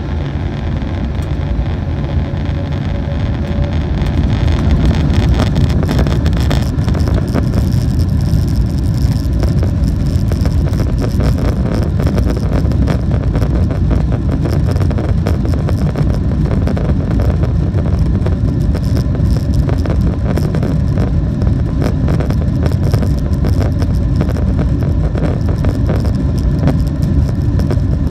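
Jet airliner's engines at takeoff thrust during the takeoff roll: a loud, steady rumble with a rapid rattling from the wheels on the runway, growing louder about four seconds in and then holding.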